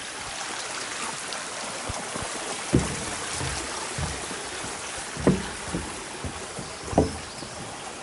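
Steady rushing of a mountain stream, with three dull thumps about two seconds apart, the loudest sounds here.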